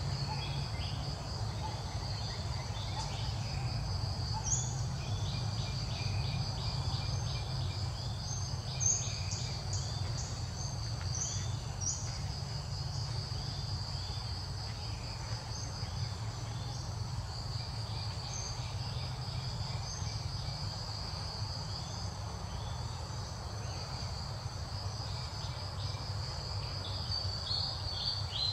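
Steady high-pitched chirring of insects in the trees, with stretches of fast pulsing and a few short high chirps, over a low steady rumble.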